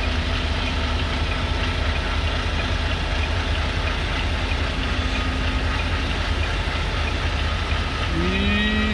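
Semi-truck diesel engine idling with a steady low rumble, heard from inside the cab, while the truck slowly backs into a parking space.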